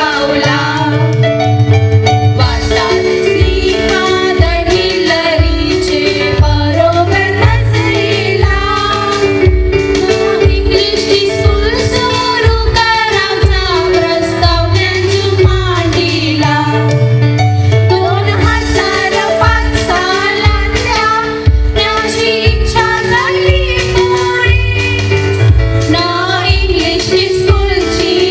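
A women's chorus singing together through microphones over amplified accompaniment with a steady beat and held chords.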